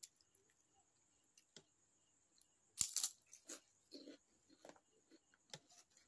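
A person eating close to the microphone: faint chewing and mouth clicks, with a short louder crackle about three seconds in.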